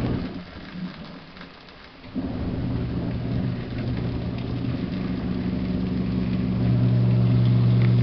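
Portable mini washing machine running: a steady motor hum with water churning in the tub. The motor cuts out for about two seconds near the start, then starts again and runs louder toward the end.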